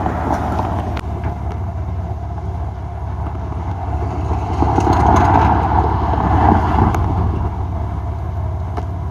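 Motor vehicle running on the road: a steady low engine hum with road noise, swelling louder for a couple of seconds in the middle.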